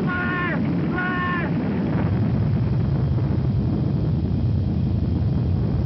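Two short horn honks about a second apart, followed by a steady low rumble from the erupting volcano.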